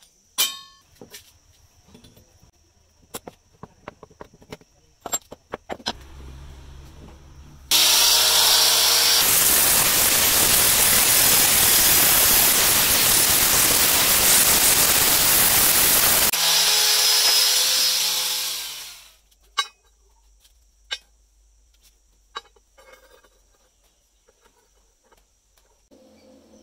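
Angle grinder spinning up and grinding into a steel motorcycle chain sprocket for about eight seconds with a loud, harsh hiss, then the motor winding down. Scattered clicks and knocks of metal being handled come before and after.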